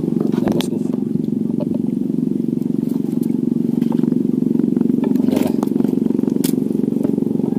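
Small riverboat's engine running steadily with an even, low drone, with a few light clicks and knocks on top.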